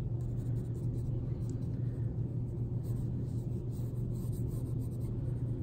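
Faint scratching of a pencil lightly sketching on drawing paper, over a steady low hum.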